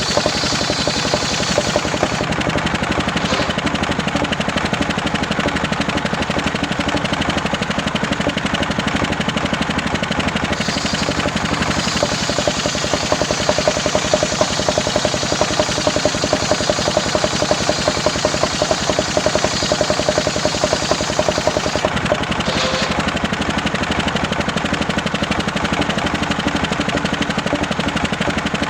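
Homemade engine-driven circular saw running steadily with a rapid, even engine beat while sawing waru timber into rafter stock.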